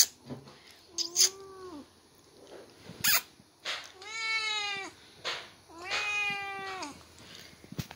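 White Persian cat meowing three times: a short meow about a second in, then two longer, drawn-out meows around four and six seconds. A few brief clicks come in between.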